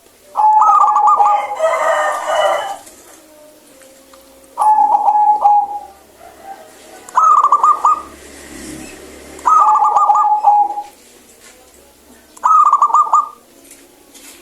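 Zebra dove (perkutut) cooing its clear, stuttering song: five phrases a few seconds apart, each lasting about a second. A rougher call overlaps the first phrase.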